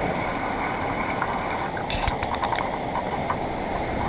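Steady rushing noise of rough sea surf churning and washing against the rocks below, with a few faint clicks about two seconds in.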